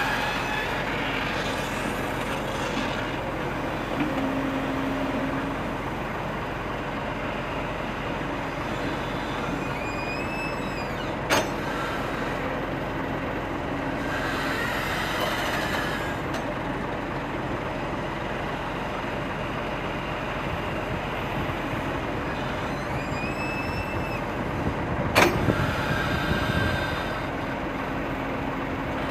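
Kobelco SK200 excavator running steadily, with brief squeals twice and two sharp knocks, one about a third of the way in and one near the end.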